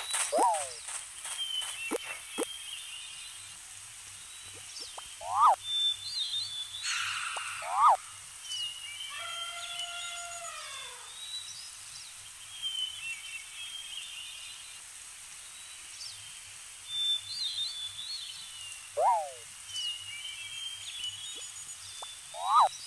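Outdoor nature ambience of birds chirping, with short calls that swoop sharply downward every few seconds and a longer call that rises and then falls in pitch about ten seconds in.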